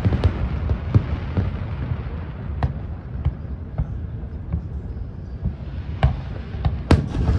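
Aerial fireworks bursting: a steady low rumble with scattered sharp bangs, thinning out through the middle and picking up again near the end.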